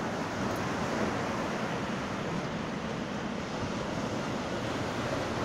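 Surf breaking on a sandy beach: a steady rush of small waves washing up the shore.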